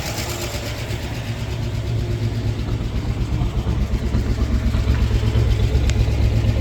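A 1958 Oldsmobile 88's V8 engine, just revived after long storage, runs steadily with a low pulsing exhaust. It grows gradually louder from about two seconds in.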